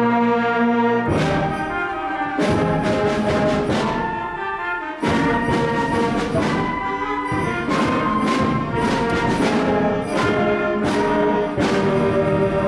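School concert band, brass to the fore, playing the loud closing bars of a piece: a held chord, then a run of accented chords punctuated by sharp percussion hits.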